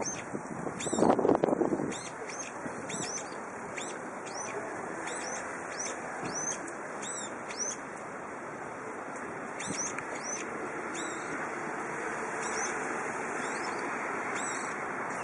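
Many short, high, upward-sweeping bird chirps, several a second, over steady wind noise on the microphone; a louder gust hits about a second in.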